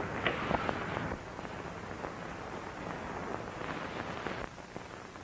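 Hiss and crackle of an old 1930s film soundtrack, with scattered faint clicks, a few more distinct ones in the first second.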